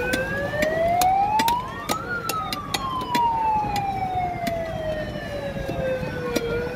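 A siren winds up in pitch for about two seconds, then slowly winds down over the next four seconds. Under it are sharp, irregular knocks from a fish being chopped on a boti blade.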